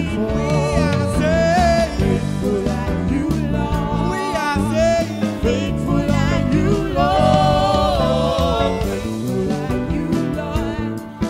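A man singing a gospel worship song into a microphone with band accompaniment, his voice sliding and wavering over steady chords.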